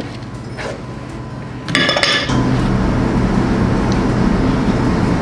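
Utensils clinking against a mixing bowl and cake pans, with a brighter ringing clink just before two seconds in. Then a steady low mechanical hum starts and continues, louder than the clinks.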